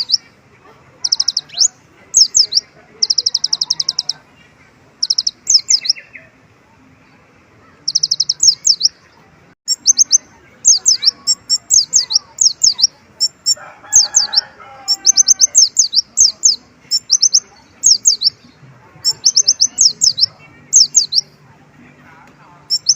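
Kolibri ninja (a sunbird) singing, with bursts of rapid, high-pitched twittering chirps and short trills coming every second or two, a song filled with mimicked pleci (white-eye) calls. A brief rustle about two-thirds of the way through.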